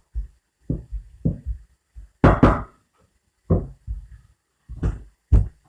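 Rolling pin knocking and thudding on a block of chilled puff pastry dough on the work surface: a string of irregular dull thumps, the loudest two in quick succession about two seconds in.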